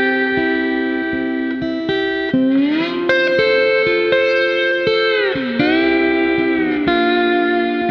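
Slide guitar music in Hawaiian style: sustained plucked chords that glide smoothly up and down in pitch, about three times, over a steady plucked rhythm.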